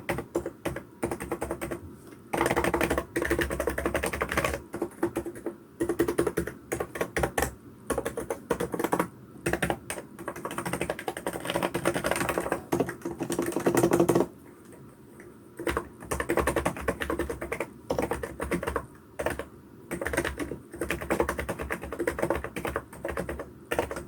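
Fast typing on a Hansung GK898B electrostatic capacitive (non-contact) keyboard: dense runs of keystrokes with short gaps and a longer pause a little past halfway.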